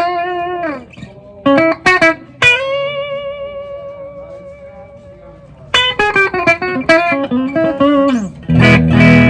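Ibanez AZ Essentials electric guitar playing a lead line: single notes with string bends and vibrato, then a long vibrato note that slowly fades. A quick run of notes bends down, and lower chords ring out near the end.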